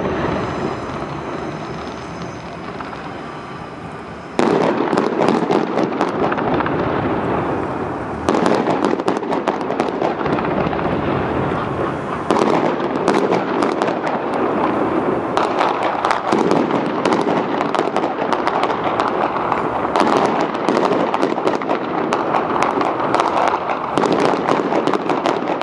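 Fireworks going off: a hiss with a high whistle for the first few seconds, then dense, rapid crackling and popping from about four seconds in that keeps on.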